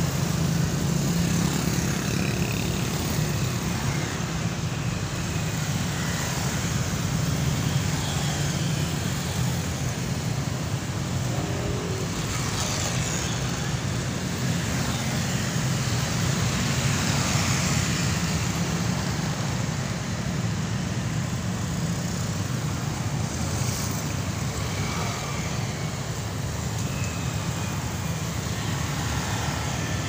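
Steady road traffic, mostly motorcycles and a few cars, on a flyover: continuous engine and tyre noise, with single vehicles passing by now and then.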